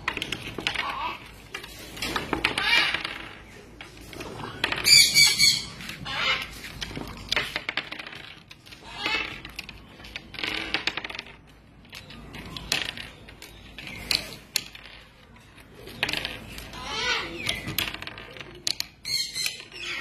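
Pet parrots calling and chattering in irregular bursts, with a loud warbling whistle-like call about five seconds in and another near the end, over scattered light clicks and knocks of small plastic toy balls on a wooden table.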